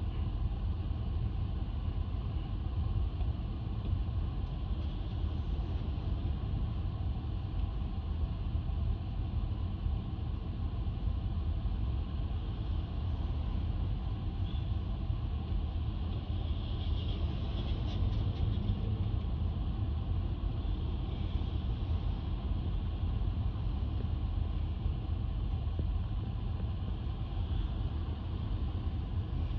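Steady low rumble of street traffic and an idling vehicle engine, unchanging throughout.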